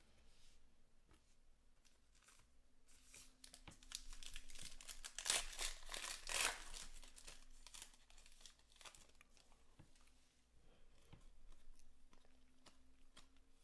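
A trading-card pack wrapper being torn open and crinkled, loudest around the middle. Afterwards comes softer rustling and clicking as the cards are handled and flipped through.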